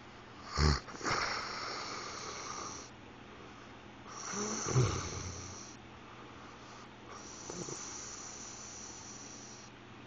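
A man snoring in his sleep with a weird sound: two short, loud snorts, about a second in and again near five seconds, each followed by a long, airy, hissing breath.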